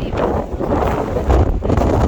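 Strong sea wind buffeting the microphone, a loud, low, uneven rumble that swells and dips in gusts.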